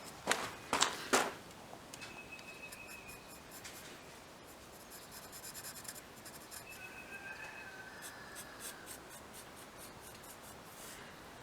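Three sharp knocks in the first second or so, then faint, fine scratching and rubbing by hand.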